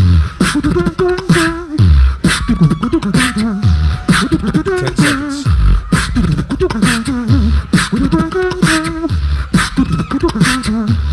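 Two beatboxers performing together into microphones: deep bass hits that fall in pitch about every two seconds, sharp snare and hi-hat clicks between them, and a pitched, sliding vocal bass line.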